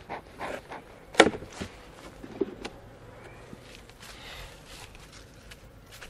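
A bee smoker's bellows puffing several times in quick succession, then a sharp knock just over a second in and a few lighter knocks and rustles as hive parts are handled.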